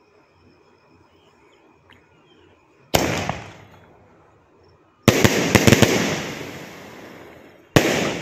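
Elephant-brand 'seven step' 3-inch pipe aerial firework firing. There is a loud bang about three seconds in, a burst of several rapid cracks around five seconds in, and another loud bang near the end, each dying away slowly.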